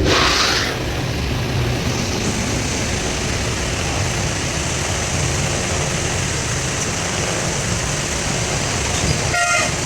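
Steady vehicle engine and road noise, with a brief hiss at the start and a short horn toot about a second before the end.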